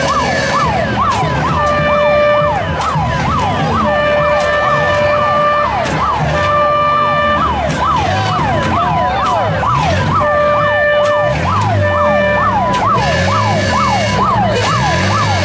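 Emergency vehicle sirens in a fast yelp, about three rising sweeps a second, with repeated steady horn-like tones about a second long over them.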